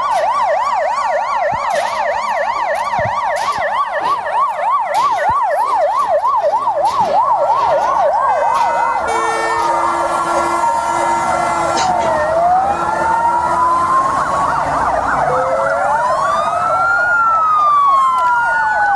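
Emergency vehicle sirens: a rapid yelp warbling fast between two pitches, giving way about halfway through to slower, overlapping rising-and-falling wails.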